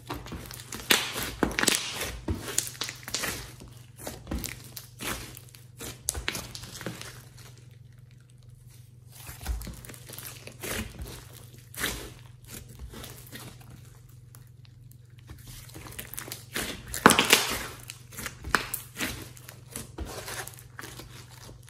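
Hands kneading, squeezing and stretching a large lump of sticky slime mixed with clay and glitter: irregular clusters of quick wet crackles and clicks as it is pressed and pulled apart, the loudest a little after the middle.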